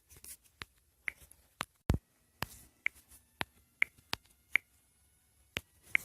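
A sparse run of sharp clicks, roughly two a second, several with a brief high ring. A deeper knock about two seconds in is the loudest, and the clicks pause for about a second near the end.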